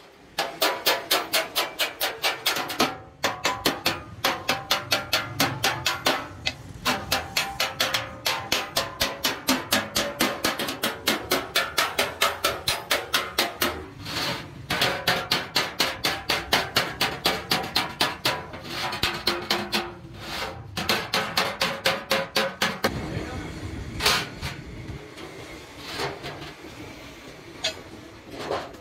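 Small hammer striking the rim of a sheet-metal milk can in a rapid, even run of blows, about five a second, with the can ringing under them. Near the end the blows thin out to a few scattered strikes.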